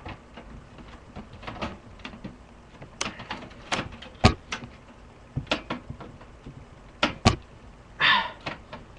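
Scattered sharp clicks and knocks of a screwdriver and parts being handled inside a desktop computer case while screws are being worked out, the loudest just after four and seven seconds. A short rushing sound comes about eight seconds in.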